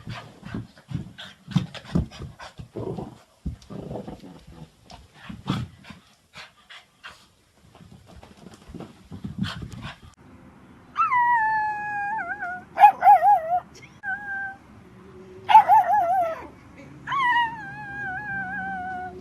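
A dog making short breathy sounds, then, about halfway through, letting out several long high howls that fall in pitch, some of them wavering.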